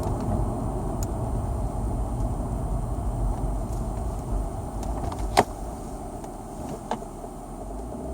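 A BMW E39 523i with a ZF 5HP19 automatic gearbox runs with a steady low rumble. There is a sharp click about five seconds in and a fainter one about a second and a half later.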